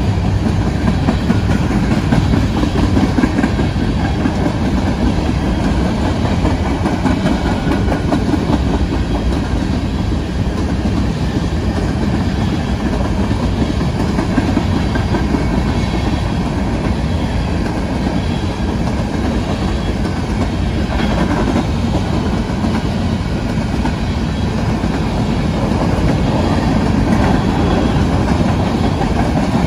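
Covered hopper cars of a BNSF grain train rolling past, their steel wheels on the rails making a steady, low rolling noise.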